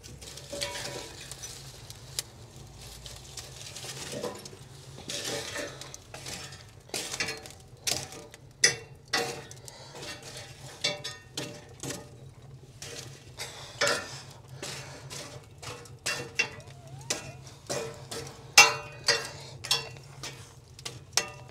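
A metal poker knocking, scraping and clinking against the firebox grate and steel walls of an offset smoker as it shifts burning oak and pecan logs. The knocks come irregularly, a few sharper strikes standing out, over a low steady hum.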